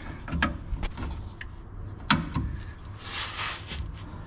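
Metal hand tools clinking and knocking against the rear suspension of a Volkswagen Type 2 pickup: a few sharp knocks, the loudest about two seconds in, then a short scraping hiss just after three seconds.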